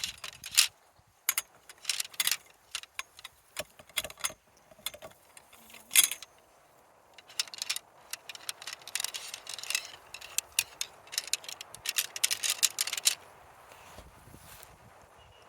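Irregular clinking and rattling of small hard objects being handled, busiest in the middle of the stretch.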